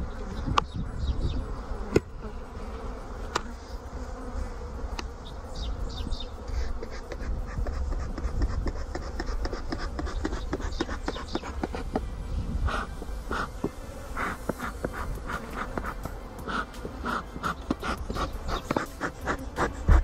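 Honeybees buzzing around an open hive, single bees passing close in short buzzes. The passes come thicker over the last several seconds.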